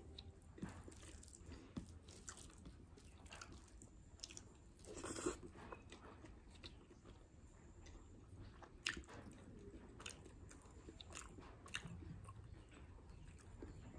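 Faint, close-miked eating sounds: chewing with scattered mouth clicks and smacks. There is a louder brief noisy sound about five seconds in and a sharp click near nine seconds.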